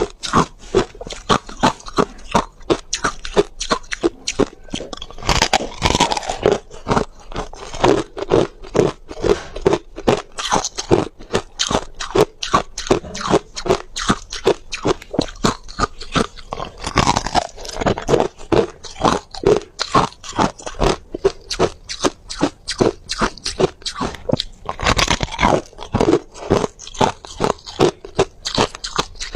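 A person chewing ice, with a rapid, steady run of crunches, roughly two to three a second. A few louder bites come about six seconds in, around seventeen seconds and around twenty-five seconds.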